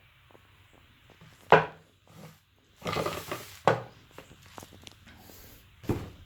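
Handling noise from unboxing small wooden speaker cabinets: three knocks as they are picked up and set down, with a short scraping rustle in between.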